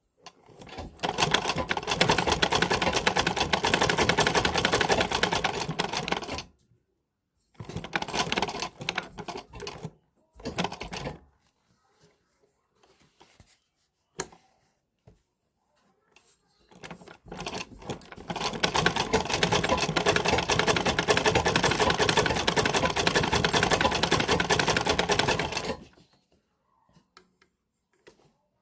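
Vintage manual sewing machine stitching in runs of rapid, even ticking. There is a long run of about six seconds, then two short bursts, a few scattered clicks in a pause, and another long run of about nine seconds.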